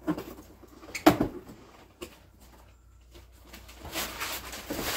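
Knife slitting the packing tape on a cardboard box, with two sharp cracks of tape giving way near the start and about a second in, then cardboard flaps rustling as the box is pulled open near the end.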